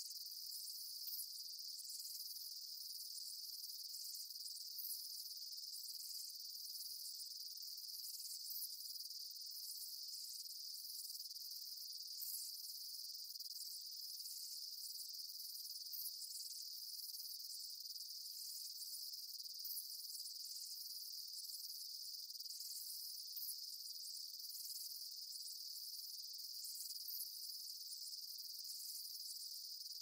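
Steady high-pitched insect chorus, a continuous shrill trill with short brighter flicks about every second.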